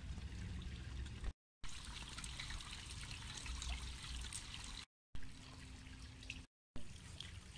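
Water trickling and dribbling down the face of a stacked-stone water feature onto wet paving and drain grates, a steady trickle cut off by short silences twice.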